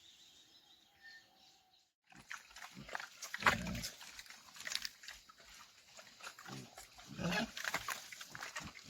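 Pigs grunting, starting abruptly about two seconds in, with the loudest calls about three and a half and seven seconds in. Faint bird calls are heard before that.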